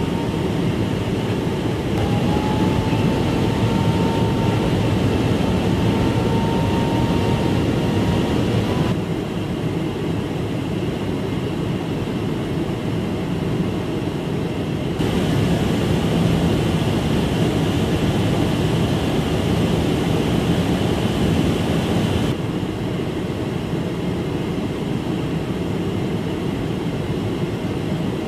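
Steady in-flight jet aircraft noise, a dense rush of engine and airstream, stepping up or down in level at a few cuts. A faint thin whistle holds from about two seconds in until about nine seconds.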